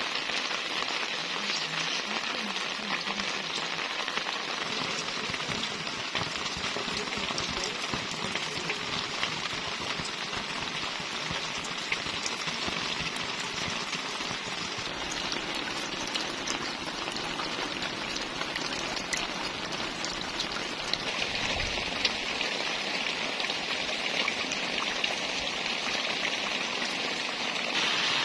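Steady rain falling, a continuous hiss dotted with the sharp ticks of individual drops.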